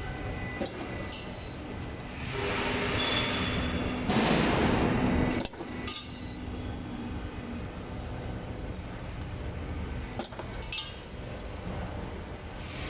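Gear-driven DIN rail roll forming machine running, a steady mechanical hum with a thin high whine. About two seconds in a louder hissing surge builds and cuts off suddenly at about five and a half seconds.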